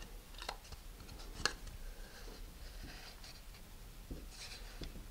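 Faint rubbing and light clicks of a tube coupler with a centering ring being worked into a hollowed plastic nose cone to check the fit, with one sharper click about a second and a half in.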